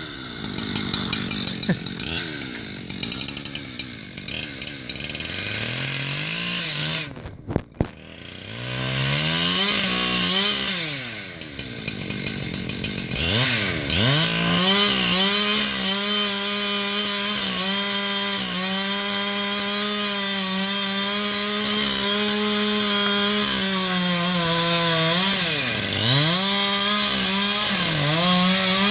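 Two-stroke chainsaw revving up and down, then held at full throttle for the second half, cutting into the tree, with one brief sharp dip in engine speed near the end.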